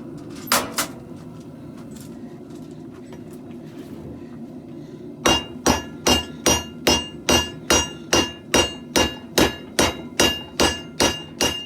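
Hand hammer striking hot leaf-spring steel on an anvil, forging a garden hoe. There are two quick blows under a second in, then steady blows at about two a second from about halfway, each with a bright ring.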